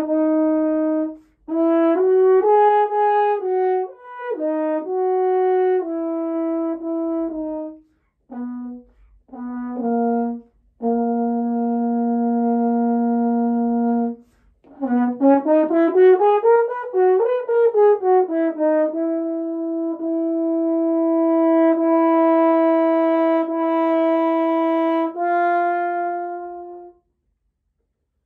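Solo French horn playing an orchestral excerpt: short phrases broken by breaths, a long held note, then a fast run that climbs and falls back. It ends on long sustained notes and stops shortly before the end.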